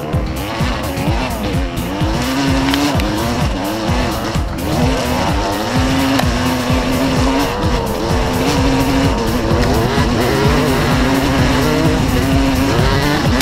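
Dirt bike engine revving up and down, its pitch repeatedly rising and falling.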